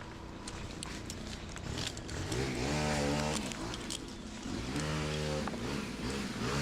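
An engine revving up and holding at a steady pitch, three times about two seconds apart.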